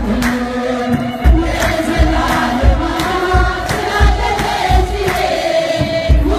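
Many voices singing an Ethiopian Orthodox wedding mezmur together, over a drum keeping a steady beat about three times a second.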